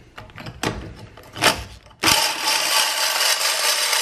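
Power drill cutting into a thick stainless-welded exhaust manifold. In the first two seconds there are scattered knocks and one sharp hit; from about two seconds in comes a steady harsh grinding. This is the cutter's teeth chewing up on the thick stainless instead of cutting through.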